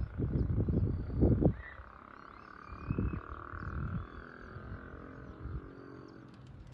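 Low rumbling gusts of wind on the microphone for the first second and a half, then a steady chorus of frogs croaking, with faint high bird chirps above it.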